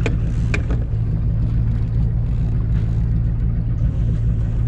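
Boat engine running steadily at trolling speed, a low drone. Two sharp clicks in the first second as a jacket brushes against the camera.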